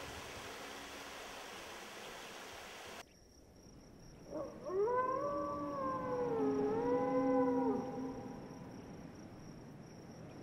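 A steady rushing noise cuts off abruptly about three seconds in. Then a wolf howls: one long howl that rises, holds, dips briefly in the middle and dies away.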